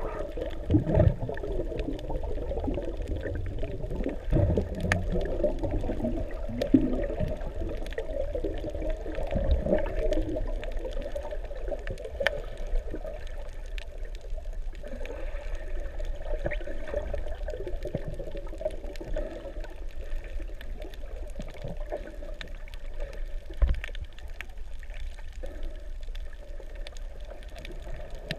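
Underwater sound picked up by a camera below the surface: muffled water movement and bubbling, with scattered faint clicks and a few soft thumps.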